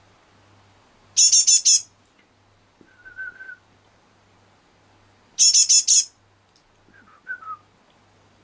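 Great tit calling twice: each call a short burst of about four rapid, high notes, followed a moment later by a few softer, lower notes.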